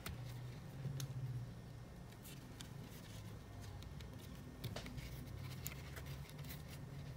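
Faint scattered clicks and rustles of crochet work: a metal crochet hook working single crochet stitches in thick cotton string, over a low steady hum.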